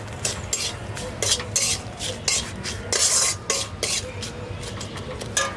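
Spatula scraping and knocking around a metal kadai in quick repeated strokes, stirring a spice masala that sizzles in hot oil and ghee, with one longer scrape about three seconds in.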